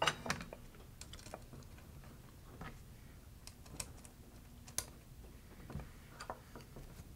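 Faint, scattered light clicks and taps of small machine screws being handled and fitted into the holes of aluminium robot channel.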